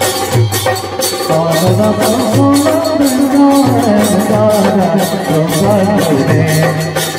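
Live Assamese folk music for a Mising tribal dance: barrel drums (dhol) keep a steady, quick beat, and a melody, sung, comes in over the drums about a second in.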